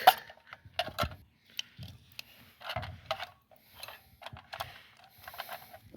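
Scattered clicks and short scrapes of batteries being pushed and fiddled into the plastic battery compartment of a remote control car controller, where they will not fit.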